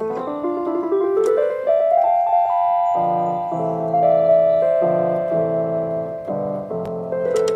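Electronic keyboard playing in a piano-like voice: held chords under a melody, with an upward run of notes near the start.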